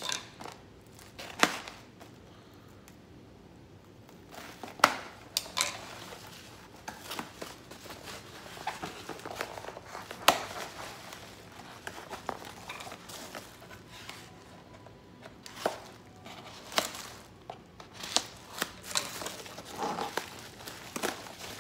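Plastic packaging crinkling and tearing as a Priority Mail mailer is pulled open and bubble wrap is cut with a knife, with irregular sharp snaps and crackles; the loudest come about 1.5, 5 and 10 seconds in.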